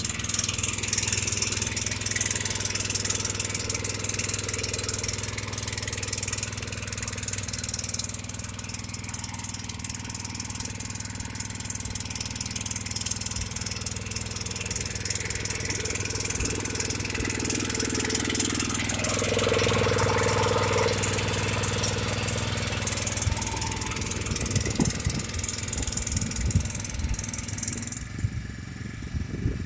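BCS 730 power weeder's 7.5 hp petrol engine running steadily under load as its rotary tiller churns wet soil. Near the end the high hiss fades.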